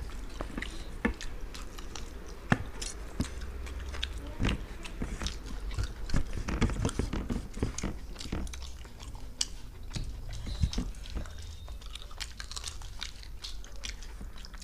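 Close-up chewing and biting of two people eating mutton biryani and chicken curry: wet mouth clicks and smacks in quick succession, busiest about six to seven seconds in.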